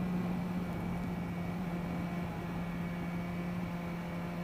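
Kawasaki Versys motorcycle cruising at a steady speed: a steady low drone with an even hiss of wind and road noise.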